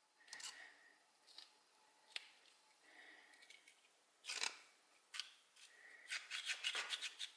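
Small metal clicks and a scrape from a pair of rusty pruning shears as their coil spring, freed of seized rust, is fitted back between the handles. Near the end comes a quick run of clicks as the shears are worked open and shut.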